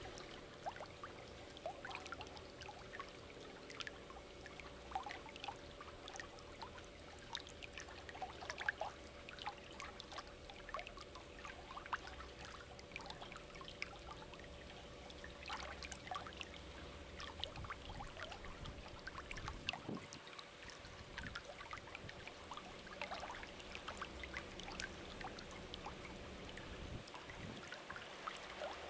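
Faint trickling, bubbling water: many small irregular drips and bubbles over a steady low hum.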